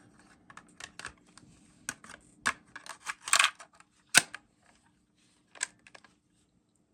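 Irregular plastic clicks and clacks of a Panasonic RQ-V150 personal cassette player's buttons and switches being pressed to try its rewind, the sharpest about four seconds in, over a faint steady hum; the rewind does not engage.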